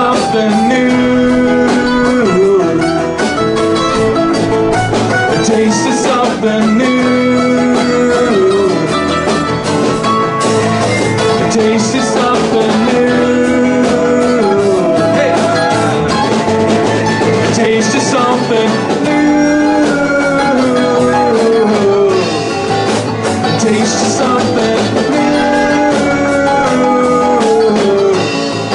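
Live band playing an instrumental break: strummed acoustic guitar, electric guitar, bass and drums under a sliding melodic lead line.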